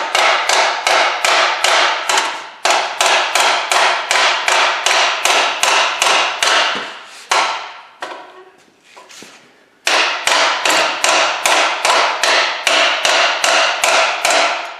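Hand hammer striking a stuck alternator on a 3.5 Duratec V6 over and over to knock it loose. The blows come fast and even, about four a second, each with a metallic ring. They stop for about two seconds a little past halfway, then carry on.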